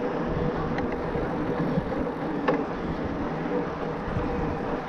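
Riding noise from a Bosch Performance Line e-mountain bike going at about 25 km/h, the motor's assist limit: a steady rush of wind and tyre noise with a steady hum underneath. Two sharp clicks come about a second in and again two and a half seconds in.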